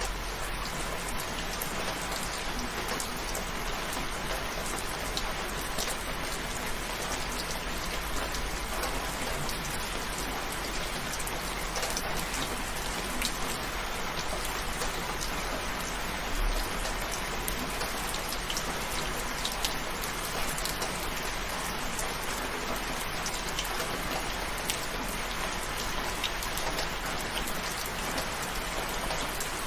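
Steady rain falling, an even hiss with scattered sharp drop hits.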